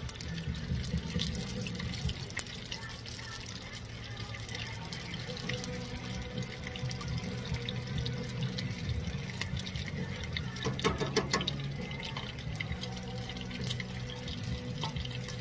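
Crab rangoons deep-frying in oil in a cast iron skillet, the oil sizzling with a dense, steady crackle; the oil is a little too hot. About two-thirds of the way through there is a brief louder clatter as the metal tongs turn them.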